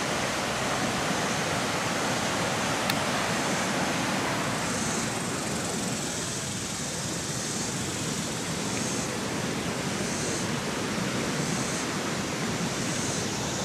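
Swollen, muddy floodwater pouring over a ledge and churning in rapids below: a steady, unbroken rushing.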